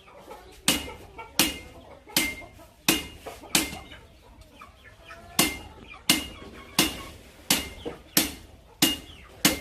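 Hand hammer striking hot steel on an anvil in a steady rhythm, about three blows every two seconds, each with a short metallic ring. There is a brief pause around the middle.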